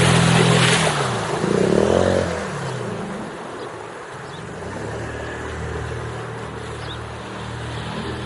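Small Mercury outboard motor on a passing boat, loud as it goes by close and dropping in pitch as it moves away about two seconds in. After that a quieter, steady outboard drone carries on.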